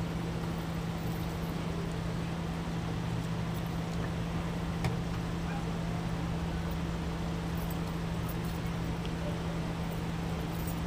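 Steady low hum of an idling vehicle engine over an even background of street noise, with one short click about five seconds in.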